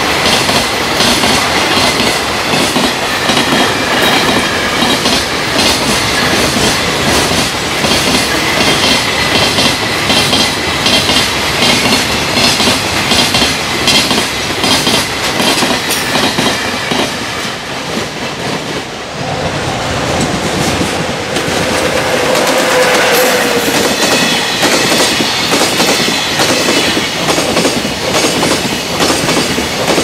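Long freight train of container flatcars passing at speed over jointed rail, the wheelsets striking the rail joints in a fast, steady clickety-clack rhythm. The level dips briefly about two-thirds of the way through.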